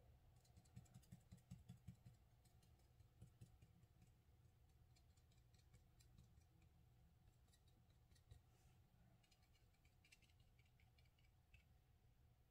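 Near silence, with faint soft taps of a small round brush dabbing watercolor onto paper, a quick run of them in the first two seconds and a few scattered ones later.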